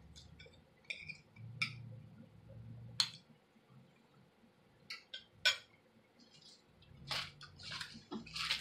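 A metal fork clinking against a plate in a few separate sharp clicks, with quiet chewing and mouth sounds of someone eating in between.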